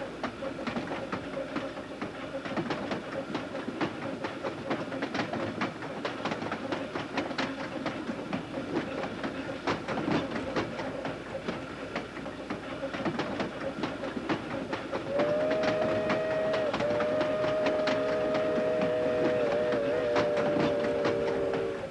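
Train running on jointed track, its wheels clicking over the rail joints, heard from the caboose. About fifteen seconds in, a steam locomotive's whistle begins one long, louder blast of several tones, briefly wavering twice.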